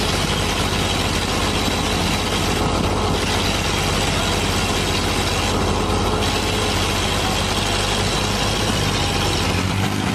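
Farm tractor engine running steadily under load while towing a small crawler tractor across churned dirt.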